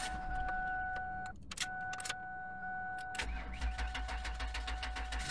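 Ford Taurus cranking over and starting on a cold start after sitting unused, heard from inside the car, with a steady high electronic tone that drops out for a moment about a second and a half in.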